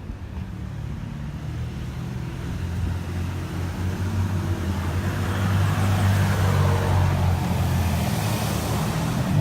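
A motor vehicle's engine running steadily, growing gradually louder, with road noise swelling in the second half.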